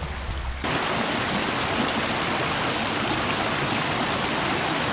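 Shallow stream rushing over rocks and stones, a steady rush of water that jumps up suddenly about half a second in.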